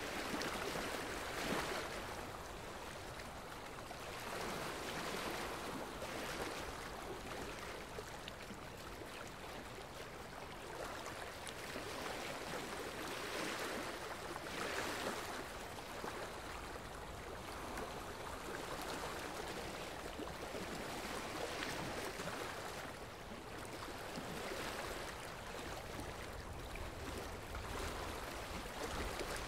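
Steady rushing noise like running water, swelling and easing every couple of seconds.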